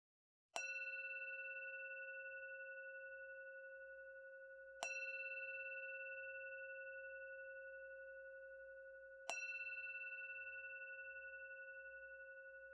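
A struck metal bell tone, sounded three times about four and a half seconds apart, each strike ringing on and slowly fading. Right at the end a lower-pitched strike begins.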